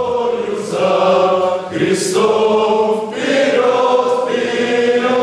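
A choir of voices singing long held chords, the chord changing a few times.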